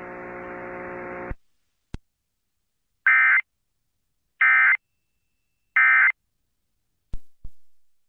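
Three short bursts of Emergency Alert System SAME digital data tones, about a second apart, each a harsh buzzing warble: the end-of-message code that closes an EAS alert. Before them a steady hum with hiss cuts off about a second in, and two clicks come near the end.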